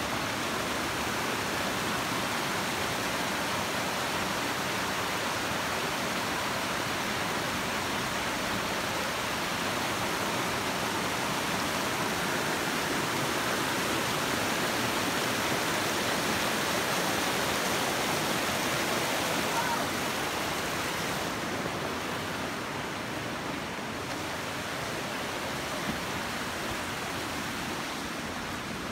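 Steady rush of a fast mountain creek running over rocks, swelling in the middle and easing off about two-thirds of the way through.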